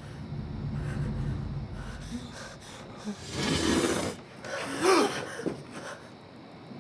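A person breathing hard: a long noisy breath about three seconds in, then a short voiced gasp near five seconds, after a low rumble in the first two seconds.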